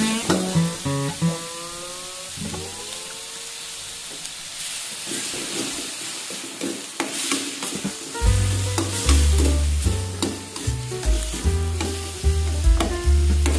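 Chicken and lemongrass sizzling in a frying pan while a metal spatula stirs and scrapes against the pan, with many short clicks. Background music plays over it, and a deep bass comes in about eight seconds in and is the loudest part.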